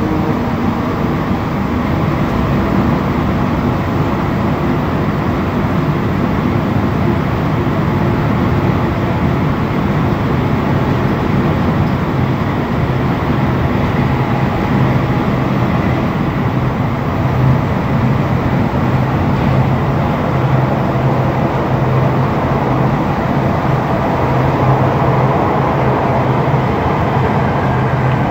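Montréal Metro Azur rubber-tyred train running at speed between stations, heard from inside the car: a steady rumble of tyres and running gear with a low hum that grows stronger about halfway through.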